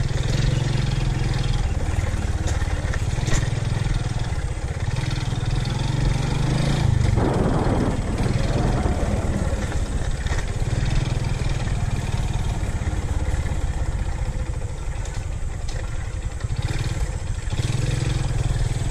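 Motorcycle engine running steadily as the bike rides along a rough dirt track, with a brief surge about seven seconds in.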